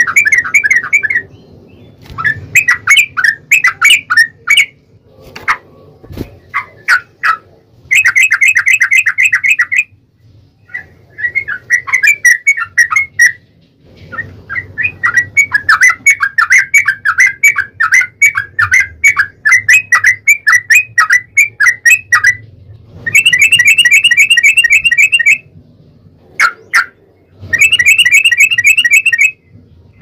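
Yellow-vented bulbul (trucukan) song: loud, rapid runs of chattering, bubbling notes in phrases of a second or two up to several seconds, with short pauses between them. This is the long rapid 'ropel' fighting call that is played as a lure to set other trucuk birds calling.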